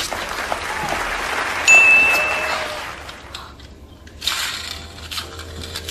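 Applause sound effect with a short, bright ding about two seconds in, greeting the correct guess of a car.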